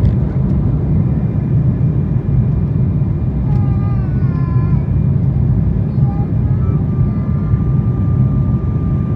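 Steady loud rumble of an Embraer 195 airliner's turbofan engines and airflow, heard from inside the cabin. A thin steady whine joins in about three-quarters of the way through.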